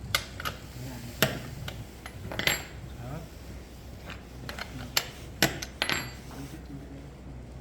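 Irregular sharp metallic clinks of a chainsaw chain's links knocking against the guide bar and saw body as the chain is pressed by hand into the bar's groove.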